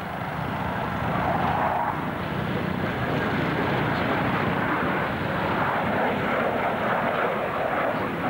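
Jet noise of a Panavia Tornado F3's twin RB199 turbofan engines as the fighter flies a gear-down pass. The noise builds over about the first second, then holds steady and loud.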